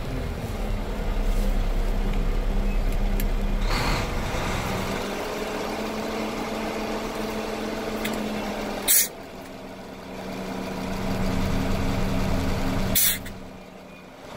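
Dump truck's diesel engine running steadily while the hydraulic hoist raises the bed, louder in the first few seconds and again before the end. Two short, sharp hisses of air cut in, about nine and thirteen seconds in, the second followed by the engine settling quieter.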